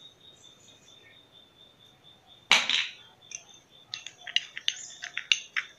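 A spoon stirring and scraping a thick paste in a small glass bowl, giving quick clinks and scrapes through the second half. One louder knock comes about two and a half seconds in.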